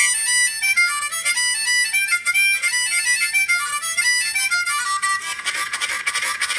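Harmonica playing a run of single notes that steps down in pitch and then climbs back up. About five seconds in, dense chords return.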